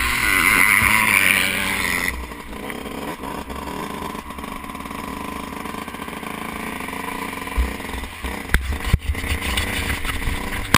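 Yamaha YZ125 two-stroke motocross engine revving hard, then dropping abruptly to lower, steadier running about two seconds in. Wind buffets the microphone, and a couple of sharp knocks come near the end.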